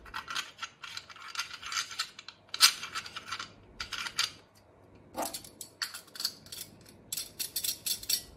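Metal parts of a Camping Gaz Globe Trotter gas stove clicking and scraping as the burner head is screwed onto the stove body: irregular runs of small rattling clicks that stop and start.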